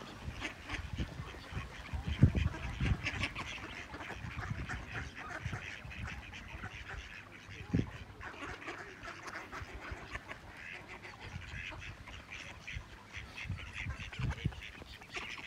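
A flock of ducks quacking, many calls overlapping without pause, with a few low thumps, the loudest about two seconds in.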